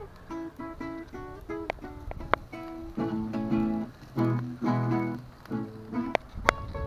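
Viola caipira plucked, a picked melody of single notes and fuller chords, with a few sharp clicks.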